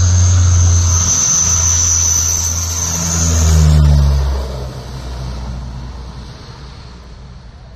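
Antonov An-32 twin-turboprop transport flying low past: a steady propeller drone with a high turbine whine. It is loudest about four seconds in, where the pitch drops, then fades away.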